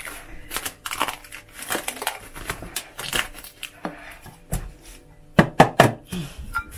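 Plastic cling film crinkling and crackling as a hand handles and pulls it at the rim of a glass jug, with a few louder crackles near the end.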